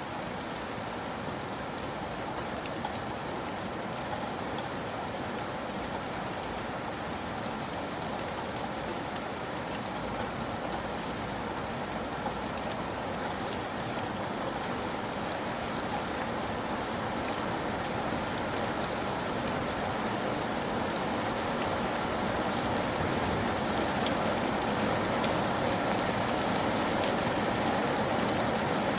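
Steady rain falling, with many small drop ticks over an even hiss, growing slightly louder toward the end.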